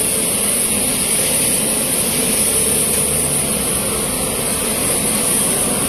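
Large military transport aircraft's jet engines running steadily on the ground: a loud, constant roar with a high hissing whine.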